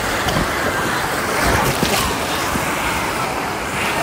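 Wave pool waves rushing and splashing close to the microphone: a steady wash of water noise.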